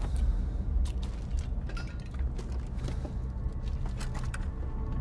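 Scrap metal clinking and creaking in scattered, irregular clicks over a steady deep rumble.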